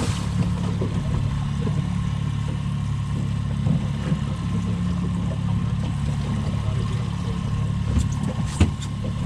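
Boat's outboard motor running steadily at low speed, with a couple of short knocks near the end.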